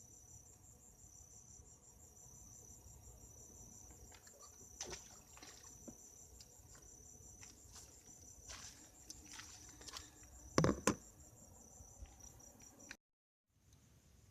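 Crickets chirping at night in a steady, high, finely pulsing trill, with a few knocks, the loudest about ten seconds in. All sound cuts out for half a second near the end.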